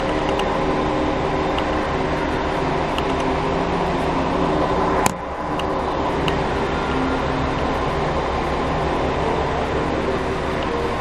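Steady hum and low rumble inside a stationary diesel railcar, its underfloor engine idling, with several steady tones over the top. One sharp click about five seconds in.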